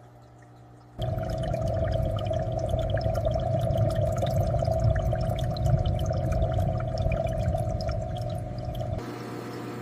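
Aquarium water bubbling and pouring, dense with small bubble pops. It starts abruptly about a second in over a low steady hum and drops to a quieter, smoother bubbling near the end.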